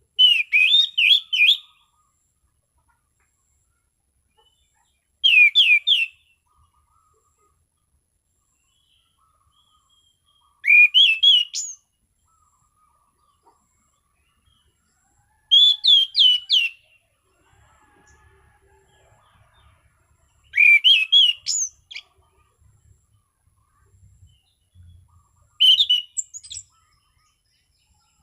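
Anis cendana thrush singing 'ngeplong': six short, clear phrases about five seconds apart, each a quick run of rising and falling notes lasting about a second.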